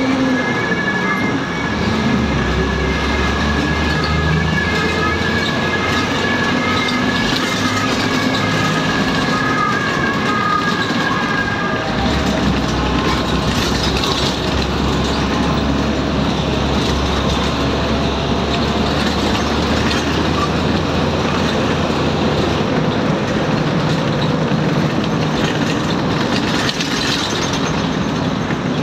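Ride sound inside a moving city bus: a steady engine drone with road noise and rattling, the engine note changing a few times. A thin whine runs over the first dozen seconds.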